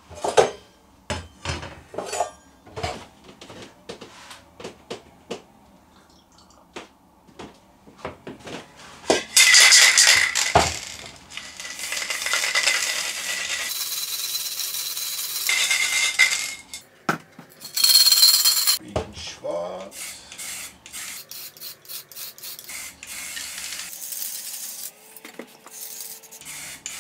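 Aerosol spray-paint can being shaken, its mixing ball rattling, then sprayed through a trigger handle: a strong hiss about a third in, a longer steady hiss after it, a short burst later, and more rattling near the end.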